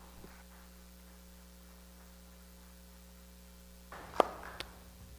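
Quiet room tone with a steady low hum. About four seconds in come a few sharp knocks and one hard thump: footsteps on the platform as a man walks up to the pulpit.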